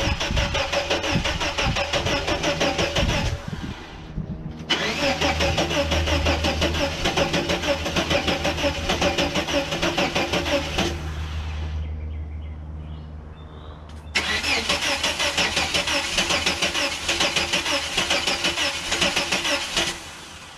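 The starter motor of a 1989 Chevrolet S10 Blazer cranks the engine in three long bursts, with short pauses between them, and the engine does not start.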